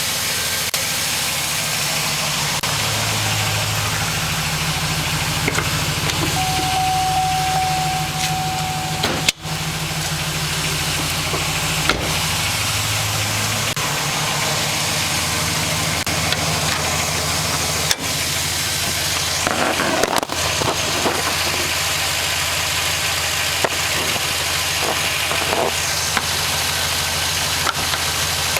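A 2006 Trailblazer SS's 6.0-litre LS2 V8 idling steadily just after a cold start, with the knocking of piston slap, a sign of loose piston-to-bore clearance that shows while the engine is cold.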